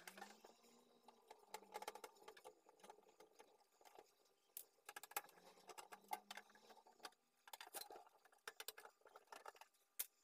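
Faint scattered clicks and small knocks as the sheet-metal casing of a Kada 850 hot-air rework station is handled and its screws are turned out with a screwdriver.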